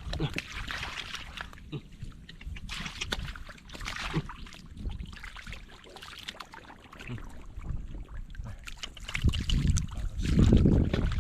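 Shallow water splashing and trickling in irregular bursts, with a louder, deeper surge of sloshing a little before the end.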